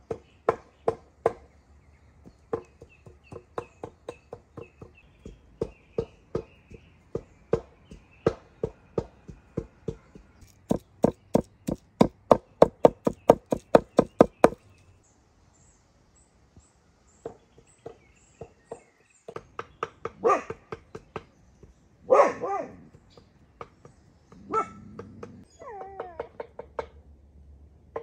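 Raw beef being minced with a heavy forged cleaver on a thick wooden board: sharp chopping strikes about two a second, quickening to about four a second before stopping about halfway through. After a pause come a few louder short calls and whines.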